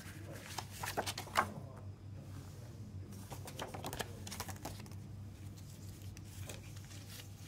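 Paper CD lyric booklet being handled: rustling and light taps in scattered clusters as it is folded shut and set down, the loudest tap about a second and a half in. A steady low hum runs underneath.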